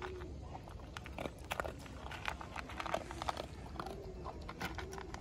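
A dog eating from a plastic bowl: irregular crunching and chewing clicks as it bites and chews its food.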